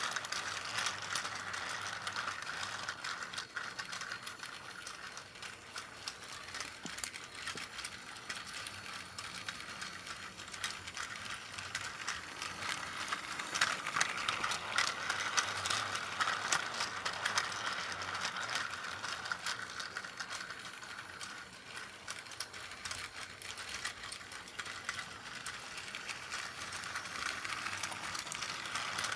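Plarail battery-powered toy C12 steam locomotive running on plastic track, its small motor and gearbox whirring with a rapid clicking rattle from the wheels and container wagons. The sound grows loudest about halfway through as the engine passes close, then fades and returns as it circles the loop.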